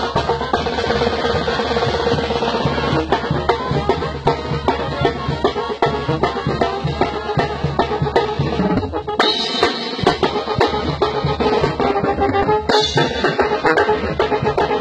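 Sinaloan banda playing live, with wind instruments over a steady beat on the bass drum and snare.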